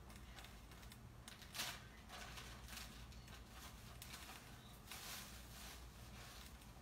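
Near silence with faint, soft swells of hiss every second or so: soup simmering in a covered hammered-aluminum pot.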